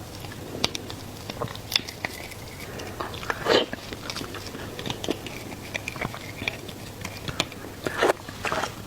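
Close-up eating sounds of seafood being bitten and chewed: scattered bites, crunches and mouth clicks, with a louder crunch about a third of the way in and another near the end.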